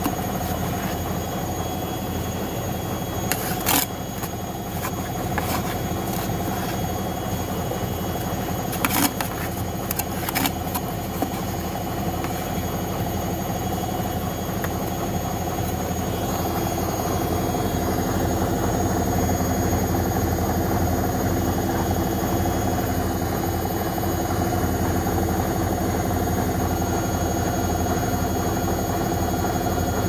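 Whirlpool FL 5065 front-loading washing machine in its spin cycle, drum spinning with snow inside: a steady motor and drum hum with several held tones. There are a few sharp knocks in the first half, and the running gets a little louder and changes pitch from about halfway.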